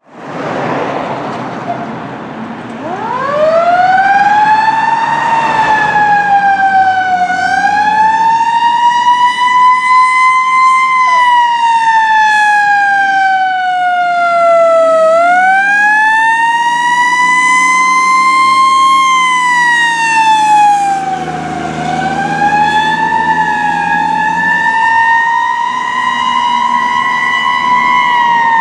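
Siren of a 1989 Hahn fire engine running hot: it winds up about three seconds in, then wails slowly up and down, each rise and fall lasting a few seconds.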